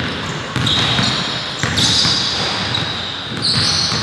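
Indoor basketball game on a gym court: a ball bouncing and sneakers squeaking in several high, drawn-out squeals as players cut and stop, with scattered voices in the large, echoing hall.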